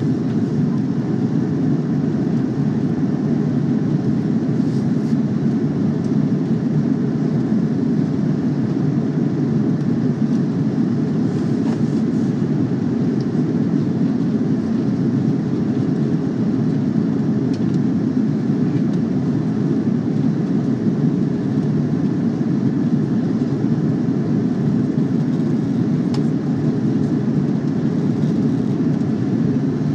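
Steady low rumble of an airliner cabin in flight, engine and airflow noise heard from a window seat, during the descent before landing.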